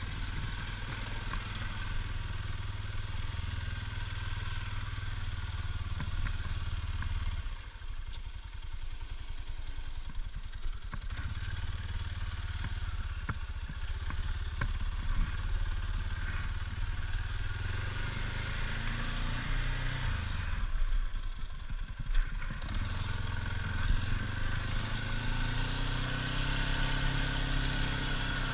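ATV engine running under load while pushing a plow blade, a steady low drone that eases off twice, with a few scattered clicks and clatter.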